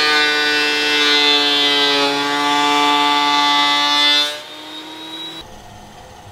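Benchtop thickness planer running as a Douglas fir 2x8 is fed through it, a loud steady high whine. About four seconds in the whine drops away, and one low tone hangs on for about another second before it stops.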